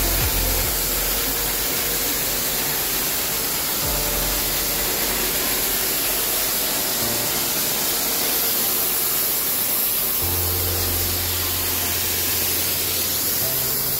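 A steady, loud hiss with an uneven low rumble underneath.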